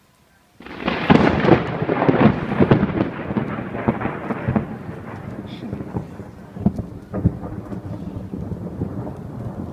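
A close thunderclap: a sudden crackling crash about half a second in, several seconds of sharp cracks, then a rolling rumble that slowly fades.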